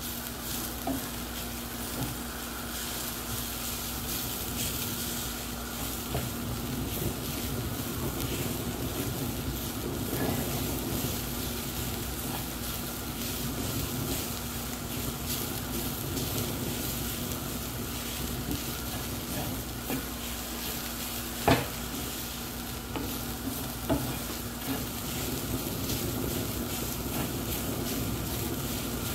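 Cauliflower rice sizzling in a nonstick frying pan while a wooden spatula stirs and scrapes it around the pan, over a steady hum. A single sharp knock comes about two-thirds of the way through.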